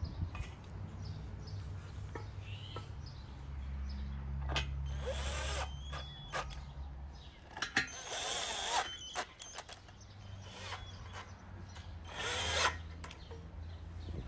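Cordless drill driving screws into wooden boards, in three runs of whirring about five, eight and twelve seconds in, the motor note rising as each run goes. Short knocks and clatter of the boards come in between.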